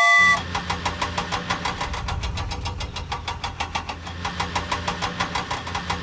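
Cartoon vehicle engine sound effect: a low steady hum with rapid, even knocks, about eight a second, after a held musical chord that cuts off about a third of a second in.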